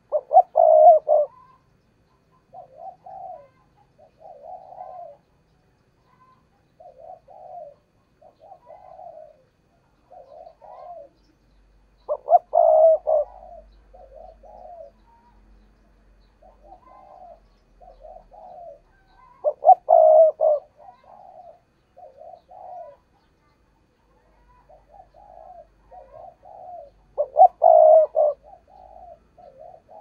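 Spotted dove cooing its bowing coo, the decoy dove's call for stirring a newly caught dove to call. Four loud coo phrases come about every seven to eight seconds, with softer coo notes between them.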